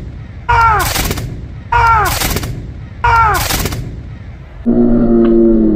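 Three black-powder musket shots, about a second and a half apart, each a sudden loud report that dies away over about a second. Near the end comes a low held tone lasting about a second.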